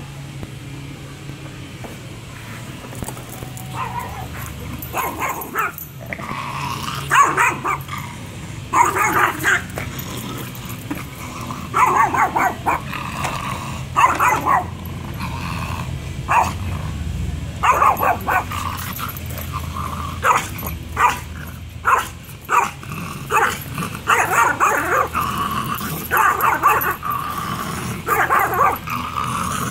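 Small Yorkshire terrier barking angrily at an upright vacuum cleaner: high-pitched yaps in quick clusters of a few at a time, starting a few seconds in and repeating throughout.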